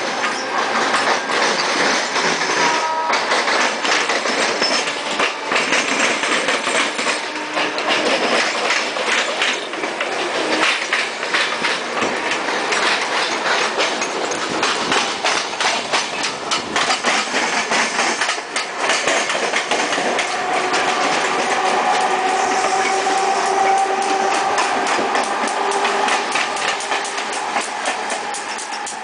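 Wheels of Mumbai suburban EMU trains running at speed side by side, clattering over rail joints and points in a loud clickety-clack. The clatter settles into a fast, even rhythm in the last third, with a steady humming tone under it.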